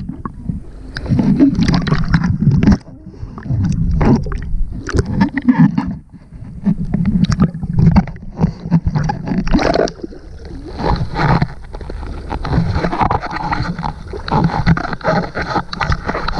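Muffled sloshing, gurgling and splashing of sea water against a waterproof action camera as it is moved in and out of the surface, in uneven surges with sudden splashy spikes.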